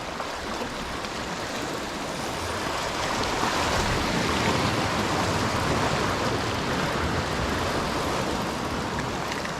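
Ocean surf washing in, the rush building about two seconds in and easing off toward the end.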